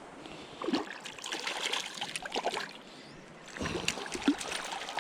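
A hooked trout splashing at the surface of a flowing stream in two spells of irregular splashes, over the steady rush of the creek.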